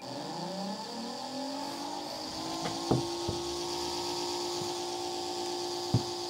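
A 3D-printed jet engine fan spun by an electric motor, running up: the whir rises in pitch over the first two seconds or so, then holds steady, with a hiss of moving air. Two sharp clicks about three seconds apart.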